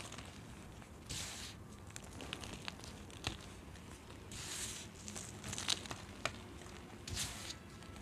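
Clumps of packed baking soda crushed and crumbled between the hands, crunching in a few soft, hissy bursts with sharp crackles in between as the powder breaks apart and sifts through the fingers.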